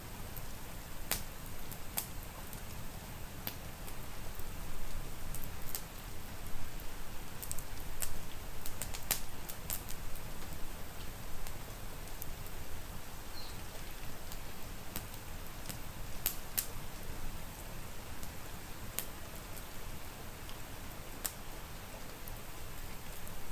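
Steady rain hiss with a wood fire crackling over it: scattered, irregular sharp pops and snaps, a few louder ones clustered near the middle.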